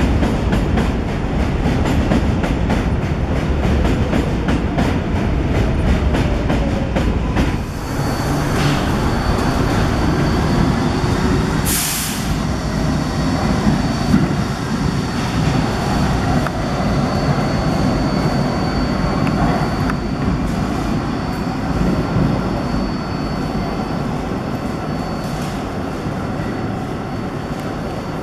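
New York City Subway 7 train cars running on elevated track, the wheels clicking rapidly over rail joints. After a break, a train rumbles in a subway tunnel station as it pulls away, with a steady high tone over the rumble and a brief hiss about twelve seconds in.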